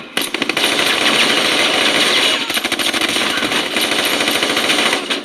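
Rapid automatic gunfire, a dense, unbroken clatter of shots.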